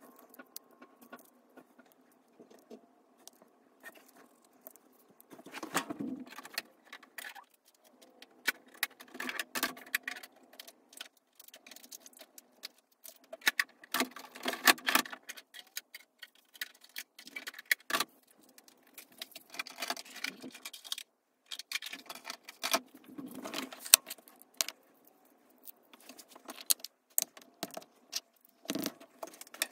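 Paper crafting handled by hand on a cutting mat: small paper pieces and stickers rustling and crinkling, with scattered light taps and clicks in short bursts and pauses between them.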